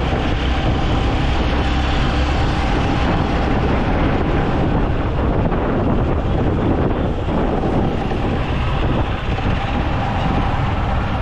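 Steady wind rushing over the microphone on a moving motorcycle, with road and engine noise beneath it.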